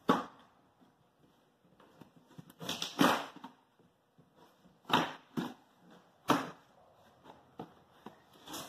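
Cardboard shipping box being opened: packing tape slit with a hand tool and the flaps pulled apart, in about five short, sharp rips and scrapes.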